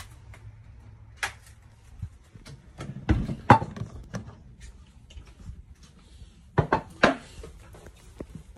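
A few scattered knocks and taps, with the loudest cluster about three seconds in and two more sharp ones near the end, over a low steady room hum.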